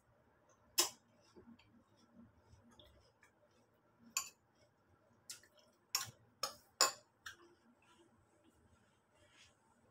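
A metal spoon clinking against a ceramic bowl while cereal with milk is scooped and eaten: about seven sharp clinks, one about a second in and the rest bunched between about four and seven and a half seconds in.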